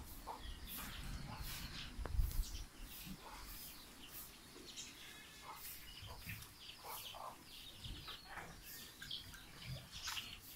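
Small birds chirping, many short scattered calls, with a low rumble during the first couple of seconds.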